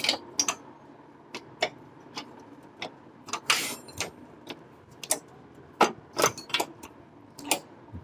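Irregular sharp metallic clicks and taps, with one short scrape midway, as the exhaust pipe's front band is fitted against the cylinder head exhaust port of a Honda CG125. The engine is not running.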